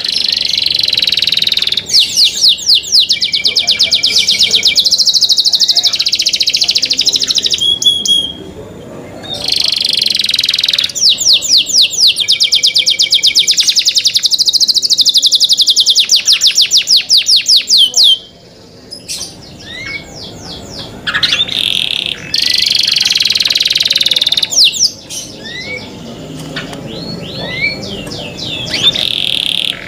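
Canary singing: long fast trills, runs of rapid repeated high notes lasting several seconds each, broken by short pauses. In the quieter stretches it gives scattered short rising chirps.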